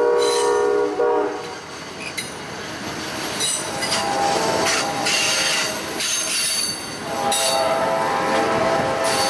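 An Amtrak passenger train passing close by: the end of a chorded train horn blast cuts off about a second in, then the passenger cars roll past with wheel-and-rail noise, and steady ringing tones come back twice as the train goes by.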